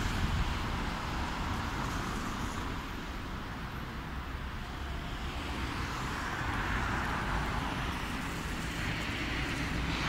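Steady city street traffic noise: a continuous low rumble and hiss of road traffic, with no single vehicle standing out.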